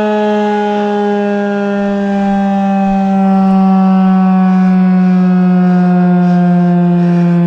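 Federal Signal 2001-130AC single-tone electromechanical outdoor warning siren sounding loudly, its steady tone slowly falling in pitch as it begins to wind down at the end of the test.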